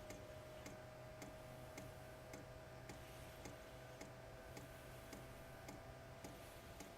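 Faint, evenly spaced clicks from a BougeRV diesel heater's fuel dosing pump, a little under two a second, during start-up, over the faint steady hum of the heater's fan.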